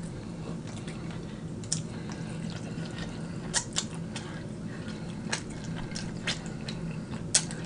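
Close-miked eating sounds: a person chewing a mouthful of macaroni and cheese, with short wet mouth clicks and smacks scattered every second or so over a steady low hum.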